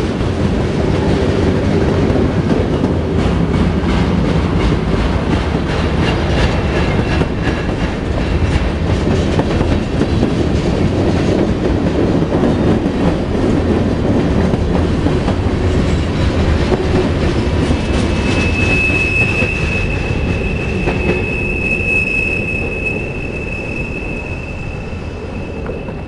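Freight cars rolling past close by, their wheels clacking over the rail joints, with a steady high wheel squeal coming in about two-thirds of the way through. The rumble eases a little near the end.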